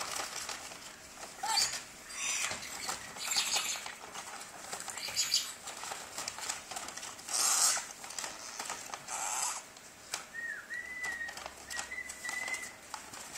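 Blue-streaked lory giving short harsh squawks every second or two amid paper-bag rustling, then two thin whistled notes near the end.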